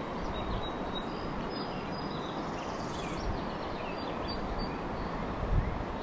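Steady rushing of a shallow flowing river with wind on the microphone, broken by a few short, faint high-pitched chirps and a low bump about five and a half seconds in.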